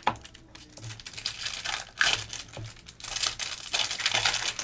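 Foil trading-card pack wrappers crinkling irregularly as a stack of Panini Optic football packs is handled, with a few sharper crackles.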